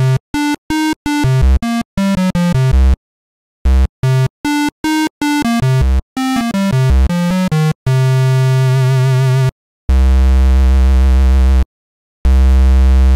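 Roland Juno-X and Roland System-8 synthesizers playing Juno-106-model initialized patches, set as close as they can get to the same sound. Short separate notes are played in two runs, the first on the Juno-X and the second on the System-8. Three long held low notes follow, the last one on the Juno-X.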